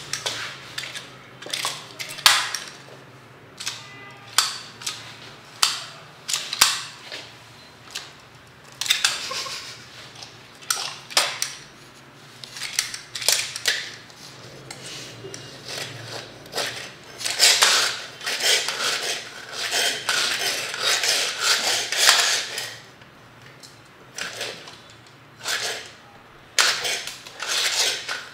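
Hand-held plastic toy clacking in sharp, irregular snaps, sometimes singly and sometimes in quick runs, with a dense stretch of rapid clacks a little past the middle.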